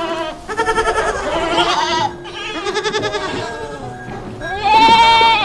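Bleating livestock: about four long, quavering bleats one after another, the last and loudest near the end.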